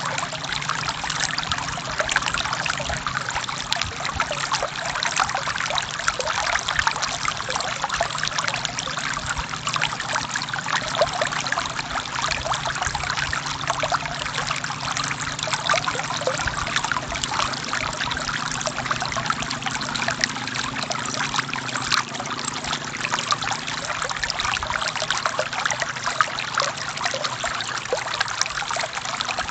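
Forest stream flowing and trickling steadily, with many small splashes and gurgles over a low rushing undertone.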